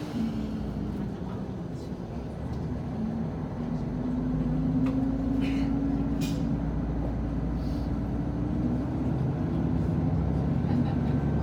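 Sanriku Railway diesel railcar's engine running under power, its hum rising slowly in pitch and getting louder about four seconds in as the train picks up speed.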